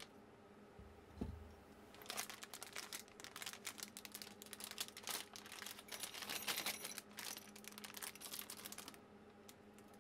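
A metal gantry frame set down on a wooden workbench with a low thump about a second in, then a plastic bag of small parts crinkling and rustling in the hands, with many small clicks.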